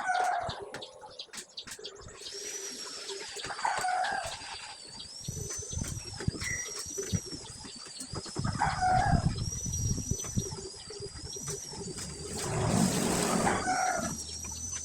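Chickens calling four times, spaced a few seconds apart, over a steady high wavering whine and a few low knocks.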